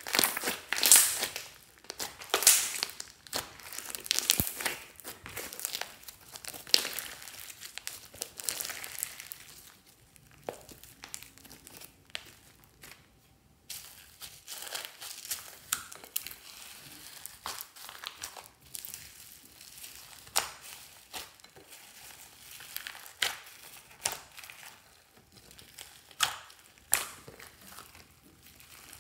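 Slime mixed with small foam beads being kneaded, pressed and stretched by hand, giving dense irregular sticky crackles and squishes. The crackling is loudest in the first ten seconds, drops away briefly, then returns softer.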